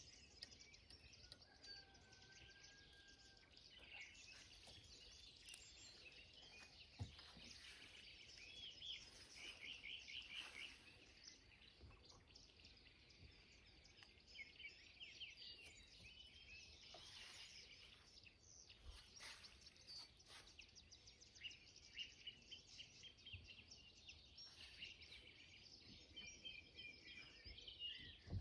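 Faint outdoor ambience with small birds chirping in the background, in short rapid runs of notes.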